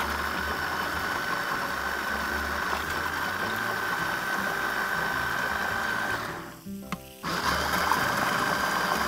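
Small electric blender running to whip a Caesar salad dressing as olive oil is poured in, emulsifying it. It runs steadily with a high whine, stops briefly about six seconds in, then starts again.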